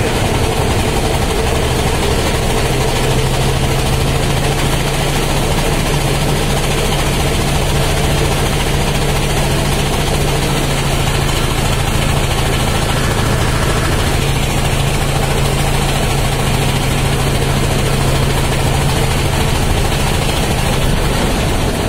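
A boat's engine running steadily under way, heard on board: a constant low drone with a broad, even rushing noise over it.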